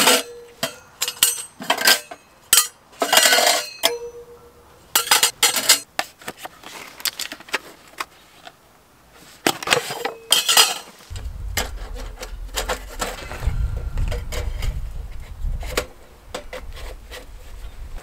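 Stainless-steel wood-stove chimney pipe sections clinking and knocking against each other as they are handled: a run of sharp metallic clicks and knocks, thinning out in the middle. A low rumble runs for several seconds in the second half.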